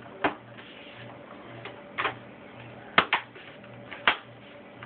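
Plastic snap clips of a Samsung N120 netbook's casing clicking into place as the part is pressed down: about five sharp clicks, two in quick succession about three seconds in.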